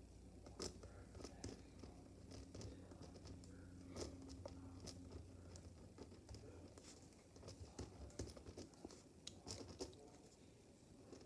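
Faint pen-and-paper sounds: scattered light ticks and scratches of a pen drawing on paper and the sheet being handled, over a steady low hum.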